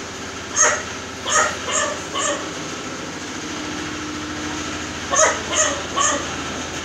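Short, sharp animal calls in two bursts: four in quick succession in the first two and a half seconds, then three more about five to six seconds in.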